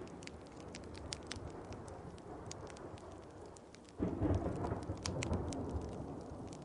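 Steady rain with the sharp pops of a crackling wood fire, and a low roll of thunder that breaks in suddenly about four seconds in and slowly fades.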